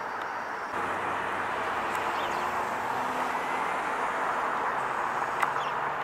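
Steady noise of passing road traffic, vehicle engine and tyres, growing louder a little under a second in.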